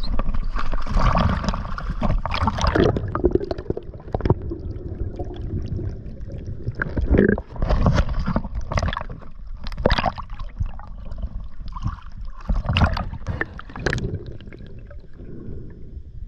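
Water sloshing and gurgling in irregular surges.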